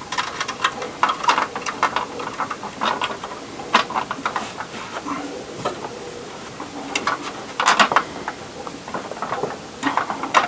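Vacuum cleaner parts being handled and fitted together by hand: irregular clicks, knocks and rattles, with a few louder knocks near the middle and just before the end.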